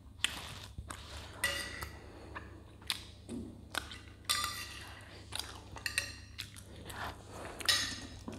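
Metal spoon clinking and scraping against a glass plate while cutting and scooping soft dudroti. The clinks are sharp and ringing, coming irregularly, about one every second or so.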